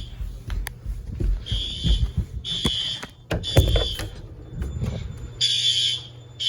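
System Sensor i3 smoke alarm sounding a false alarm in the temporal-3 pattern: three high-pitched beeps about half a second each, then a pause of about a second and a half before the next group of three begins. Low thumps and knocks of handling run under the beeps, loudest about three and a half seconds in.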